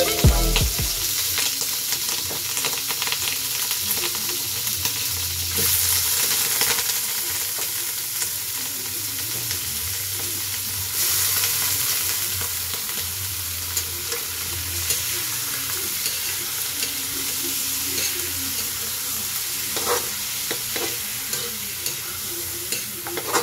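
Raw pork chunks sizzling in a large aluminium wok, the sizzle swelling louder about six and eleven seconds in as more pieces go into the pan. Near the end a metal spatula clicks and scrapes against the wok as the pork is turned.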